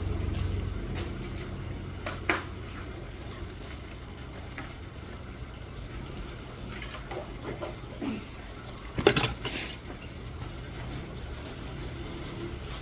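Small metal nail-care instruments clicking and clinking against each other and a tray, with scattered sharp clicks and a louder cluster of clinks about nine seconds in, over a low steady hum.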